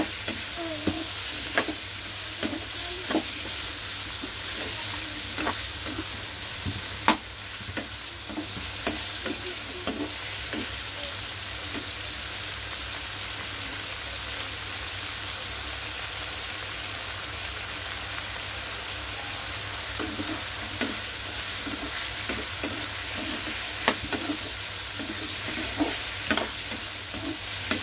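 Chicken and vegetables frying in a hot pan, with a steady sizzling hiss. A utensil scrapes and knocks against the pan for the first ten seconds or so and again near the end, with a calmer stretch of plain sizzling between.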